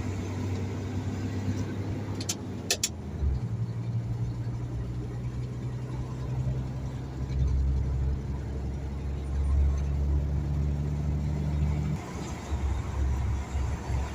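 Mercedes-Benz concrete pump truck's diesel engine running on the move, with a low steady hum. The engine note changes about three seconds in and drops about twelve seconds in. Two short sharp clicks come a little after two seconds.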